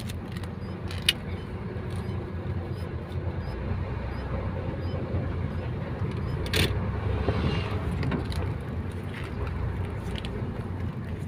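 Diesel truck engine running at low speed in a steady low rumble, with two sharp clicks, one about a second in and one near the middle.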